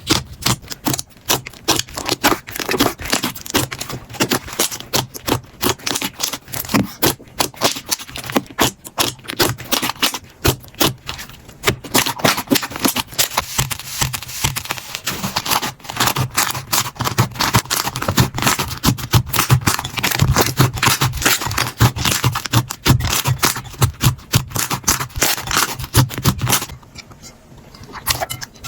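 Slime being squeezed and poked by hand, making a dense, irregular run of crackling, popping clicks that briefly die down near the end.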